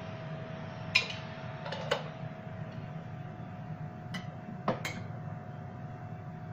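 A metal spoon giving a few light clicks and taps against a glazed clay dish and the countertop, about four knocks spread over the few seconds, over a steady faint hum.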